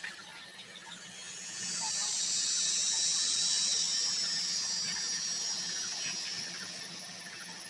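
Cicadas droning shrilly, swelling up about a second and a half in and fading away near the end.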